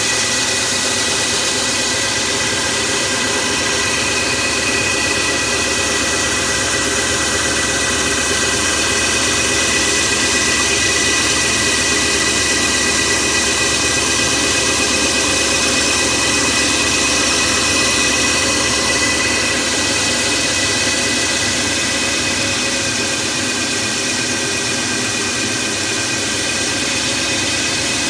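Automatic pipe sanding and polishing machine running steadily: a dense, even machine noise with several steady whining tones, easing slightly in level late on.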